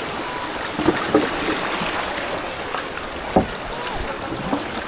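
Steady rushing of a river in flood, with a few short knocks and thumps about a second in and again past three seconds.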